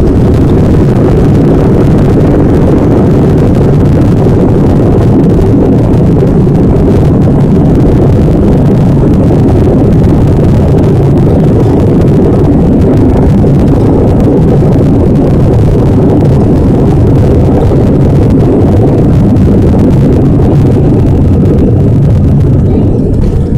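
Loud, steady roar of an Airbus A319 on its landing rollout, engines and runway rumble heard from inside the cabin, easing slightly near the end as the jet slows.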